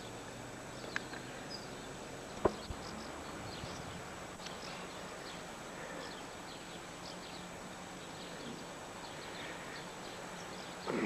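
Outdoor background with small birds chirping again and again, a faint steady high tone running underneath. A sharp knock about two and a half seconds in is the loudest sound.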